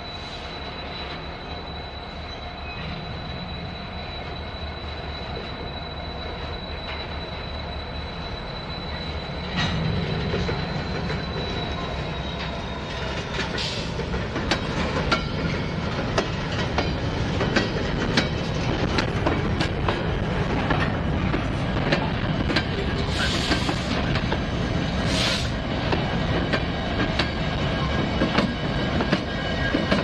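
Freight train of covered hopper cars rolling past, shoved by Norfolk Southern diesel locomotives. A steady high wheel squeal fades out about halfway through, while the train grows louder. From then on the wheels click and knock over the rail joints, with two brief hissing bursts near the end.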